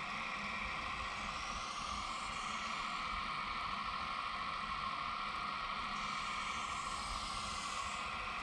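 RC model Kubota U17 mini excavator's hydraulic pump whining steadily as the machine swings and digs, with small shifts in pitch as the controls change.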